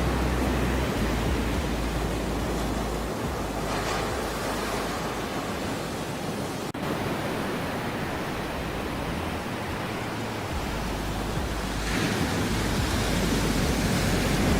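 Ocean surf washing continuously, easing off in the middle and swelling again near the end.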